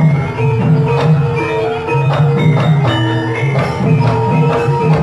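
Gamelan ensemble playing: ringing struck metallophone and gong notes over a steady beat, with sharp drum and percussion strokes.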